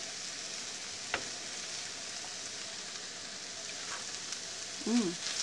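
Diced potatoes and onion frying in red chile sauce in a nonstick skillet, a steady sizzle, with a spatula stirring and one sharp tap about a second in. A brief voice sound comes near the end.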